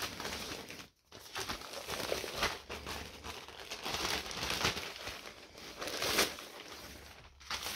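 Plastic postal mailing bag crinkling and rustling in irregular bursts as it is handled and opened by hand.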